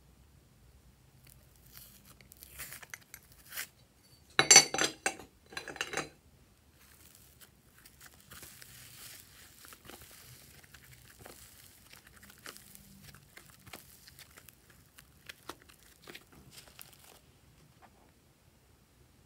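Loud crinkling and crackling as a glitter-covered craft cutout is torn and crumpled, strongest about four to six seconds in. Then comes a longer, quieter rustle with small ticks as soft orange clay is pulled apart and worked into the slime tray.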